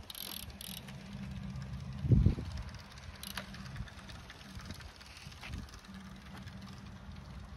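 Small woom children's pedal bike rolling on asphalt: a steady low rumble of the tyres with a few faint clicks, and one dull thump about two seconds in.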